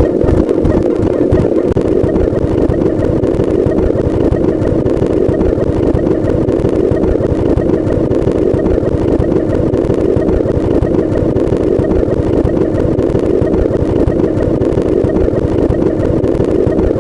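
A loud, steady, rough engine-like drone used as a sound effect.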